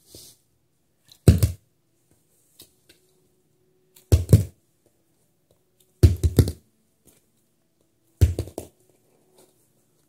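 A small plastic bottle being flipped and landing four times, about two seconds apart. Each landing is a quick clatter of two or three knocks as it hits and bounces on a hard surface.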